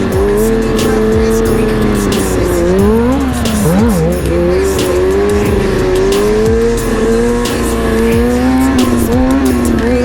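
Sportbike inline-four engine held at high, fairly steady revs, dipping and climbing again about three seconds in, over a hip-hop beat with a deep, sliding bass.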